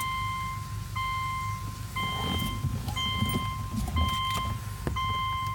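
A car's warning chime beeping about once a second, six times, over the low, uneven idle of a 2005 Subaru Outback XT's 2.5-litre turbocharged flat-four. It is a rough idle after a turbo replacement, which the owner suspects may be a tumble generator valve problem.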